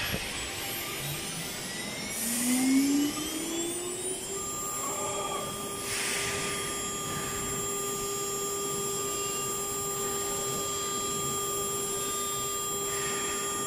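CNC router spindle spinning up with a rising whine about two seconds in, then running at a steady high-pitched whine as it cuts. Short whooshing noises come near the start, about six seconds in and near the end.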